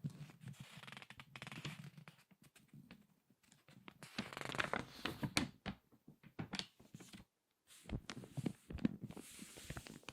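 Crinkly magazine pages being turned and squeezed by hand, crackling in irregular bursts: one at the start, a louder one around four to five seconds in, and another near the end.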